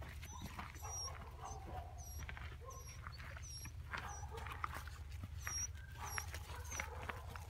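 Puppies scampering and playing over dry leaf litter: rustling footfalls through the leaves, with a run of short high squeaks and small yips.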